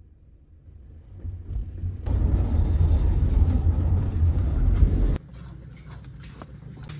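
Car interior rumble while driving: low engine and tyre noise heard inside the cabin. It rises loud about two seconds in and cuts off suddenly about five seconds in.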